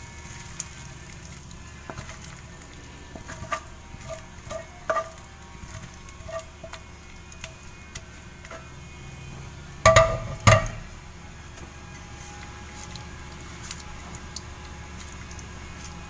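Light clinks and scrapes of a utensil on a pan over a faint steady sizzle, as cooked tuna sisig is moved into the pan; two loud knocks of cookware about ten seconds in.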